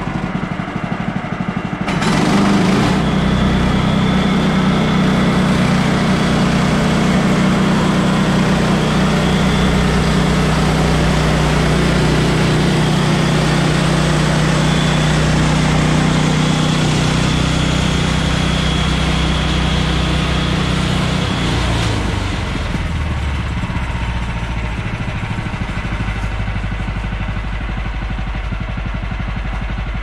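Woodland Mills portable bandsaw sawmill's small gas engine running at idle, throttled up about two seconds in, then running steadily at speed for about twenty seconds before dropping back to idle.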